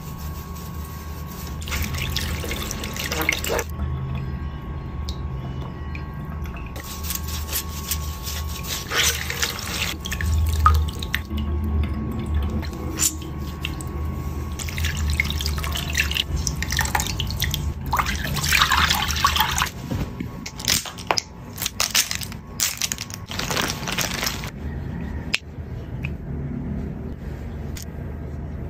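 Makeup sponge being squeezed and rinsed in a glass of soapy water at a sink: irregular splashing and squelching water, with bursts that come and go.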